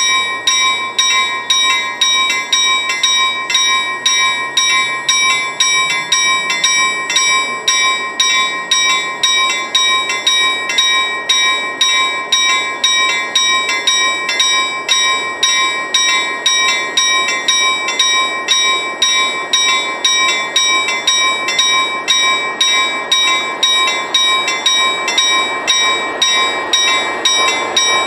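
Railway level-crossing warning bell ringing at an even rate of about two strikes a second. Near the end the noise of an approaching train rises under it.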